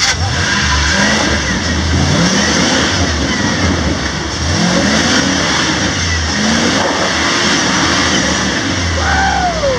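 Rock crawler's engine revving in repeated bursts, its pitch climbing with each stab of the throttle and dropping back in between.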